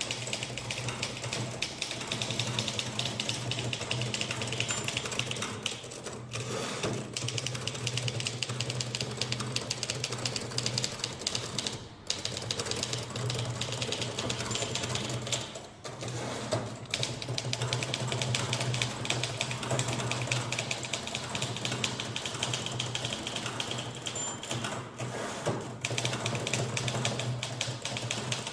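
Typewriter being typed on fast, at about 70 words a minute: a dense, rapid stream of key strikes with brief pauses a few times, over a steady low hum.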